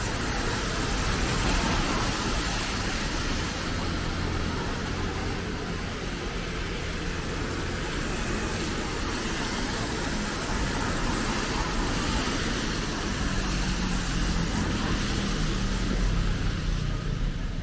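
Steady hiss of falling rain mixed with the low rumble of street traffic, the rumble growing a little stronger near the end.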